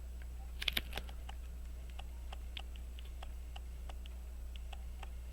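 Rapid, even ticking of a pocket watch movement, about five ticks a second, with a brief cluster of sharper clicks just under a second in, over a steady low electrical hum.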